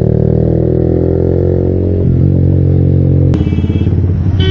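Motorcycle engine heard from the rider's seat, its note falling as the bike slows toward a traffic jam. About three seconds in the sound cuts abruptly to a lower, steadier engine note in slow traffic.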